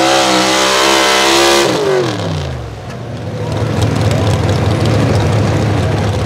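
Super stock two-wheel-drive pulling truck's engine at full power hauling the sled. About a second and a half in the throttle comes off and the revs fall away fast as the pull ends, and the engine settles into a rough idle.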